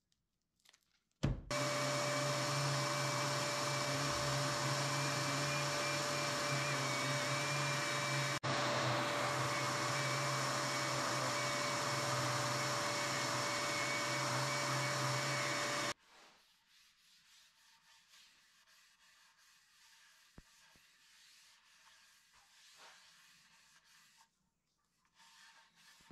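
DeWalt random orbit sander running on an end-grain hardwood board, with a shop vacuum pulling dust through its hose: a steady whine over a low hum. It starts suddenly just over a second in and cuts off sharply about two-thirds of the way through, leaving only faint rustling of a cloth wiping the board.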